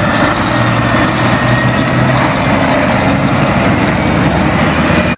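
Heavy mobile crane truck's diesel engine running loudly and steadily as the truck drives slowly, with a low engine hum under the noise; it cuts off suddenly at the end.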